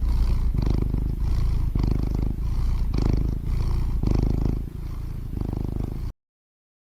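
A cat purring: a low rumble that swells and eases with each breath, cutting off abruptly about six seconds in.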